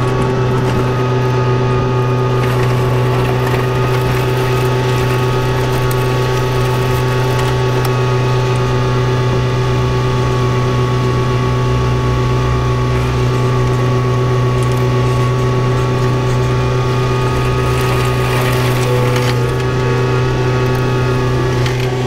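John Deere machine's engine running at a steady speed, a constant droning hum that holds one pitch throughout, while it pushes heavy, wet snow.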